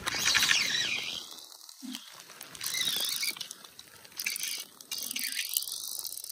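Fly reel's click-and-pawl drag buzzing as line runs on and off the spool while a hooked rainbow trout is played, its pitch rising and falling several times with the speed of the spool. Rain patters throughout.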